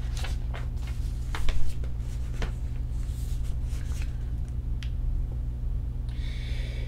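Pages of a picture book being turned and handled: a few short paper rustles and taps, the loudest about a second and a half in, over a steady low hum.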